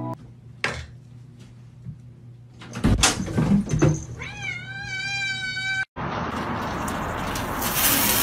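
A cat gives one long, steady meow of under two seconds that cuts off abruptly, after a thump. It is followed by the steady hiss of a hose's water jet spraying against a window.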